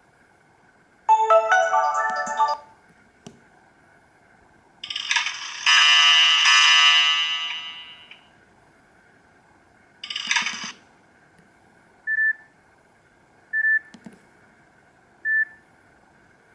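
Nokia E66 phone's built-in tones played one after another through its loudspeaker: a short melodic jingle, a fuller chord that fades out over about three seconds, another brief tone, then three short single beeps about a second and a half apart.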